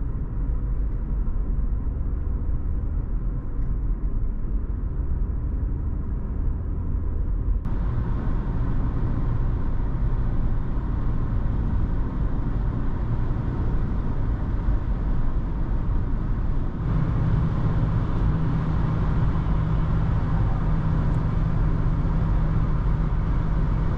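Interior cabin noise of a 1988 Mercedes 260E W124 (2.6-litre straight-six, automatic) cruising at steady speed: a steady drone heard from inside the car. It is edited into three takes at rising speed, stepping up in loudness about 8 seconds in and again about 17 seconds in. The last take is at 120 km/h, where the meter reads about 64 dBA.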